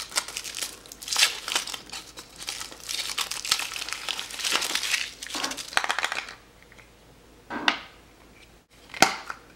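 Foil wrapper of a chocolate surprise egg being peeled off and crinkled by hand for about six seconds, followed by two short handling noises near the end.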